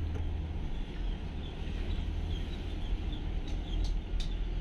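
Steady low rumble of a moving car's engine and tyres on a wet road, heard from inside the cabin, with a few faint high chirps in the middle.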